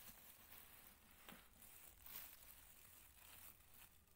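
Near silence with faint rustling and soft handling sounds, a few small clicks and scrapes against cloth.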